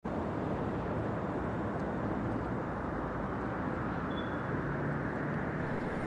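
Steady city traffic ambience: an even, low rumble of traffic with no distinct events.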